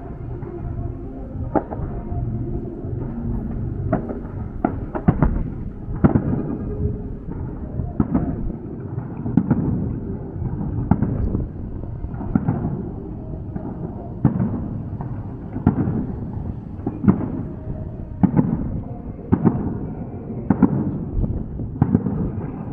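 Aerial fireworks bursting in a steady string of bangs, about one a second, over a constant rumble and crackle.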